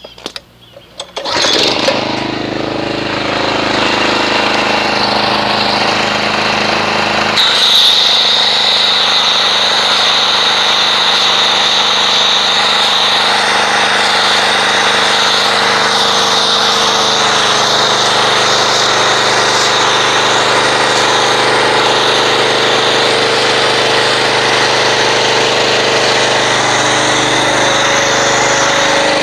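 Gas pressure washer engine pull-started, catching about a second in and running steadily. About seven seconds in, the MTM PF22 foam cannon starts spraying and a steady hiss joins the engine.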